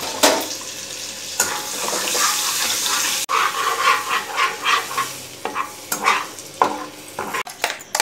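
Butter and oil sizzling in a hot frying pan. From about three seconds in, a spatula stirs and scrapes the pan in quick, regular strokes.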